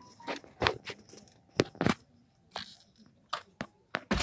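A series of short, sharp clicks and knocks at irregular intervals, about nine in four seconds, with quiet gaps between.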